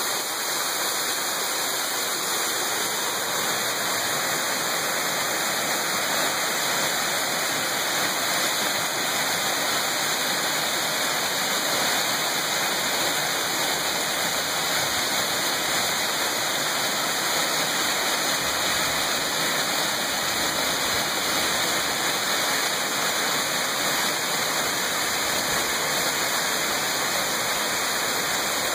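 Mountain stream cascading over boulders: a steady, unchanging rush of falling water.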